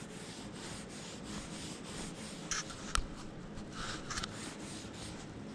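Wood stain being rubbed onto a planed maple board in repeated quick strokes, a steady scratchy rubbing with a small click about three seconds in.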